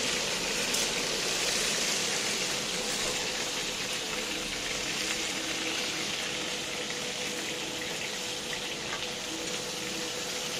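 Oil sizzling steadily under a large round pan full of pan-fried buns, an even hiss, with a steady hum underneath.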